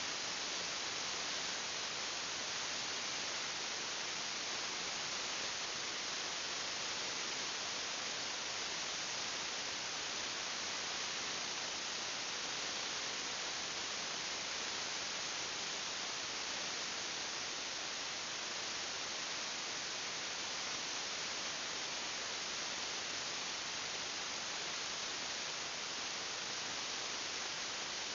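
Steady, even hiss of recording noise with no other sound.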